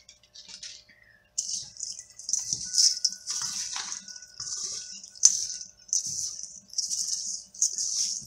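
A hand stirring a mix of compost and gravel of clay particles, lava rock and crushed coral in a stainless steel bowl: gritty rustling and crunching in repeated strokes, starting about a second and a half in, with one sharp click about halfway through.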